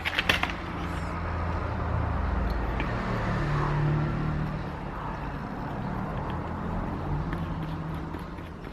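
A motor vehicle's engine rumble swelling and then fading over several seconds, as of a vehicle passing, after a few sharp clicks at the start.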